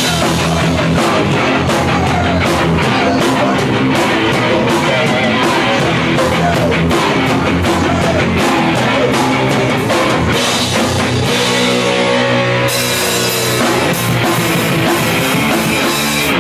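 A live hardcore band playing loud: distorted electric guitar, bass and a pounding drum kit. The song stops abruptly at the very end.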